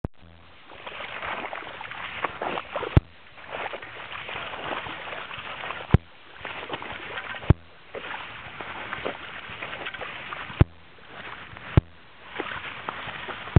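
Footsteps sloshing and crunching through wet slush and overflow water lying on river ice. Five sharp clicks are the loudest sounds, spread through it.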